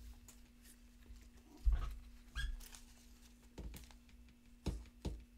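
Trading cards and plastic card holders being handled and set down on a table: five or so soft knocks with light plastic clicks, at uneven gaps of about a second, over a faint steady hum.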